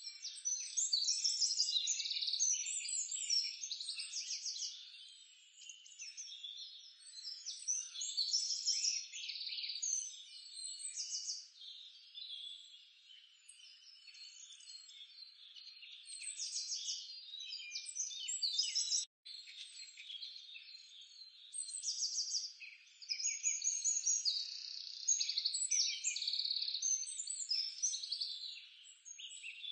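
A dense chorus of chirping birds and calling frogs, overlapping pulsed chirps and trills rising and falling in waves, briefly cutting out about two-thirds of the way through.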